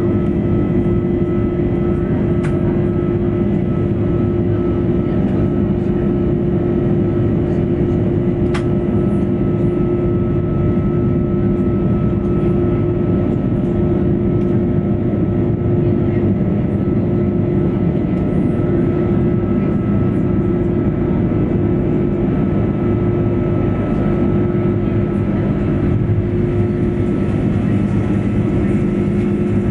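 Airbus A330-300 jet engines (Rolls-Royce Trent 700s) running steadily, heard from inside the cabin as a loud, even drone with a steady hum tone over it.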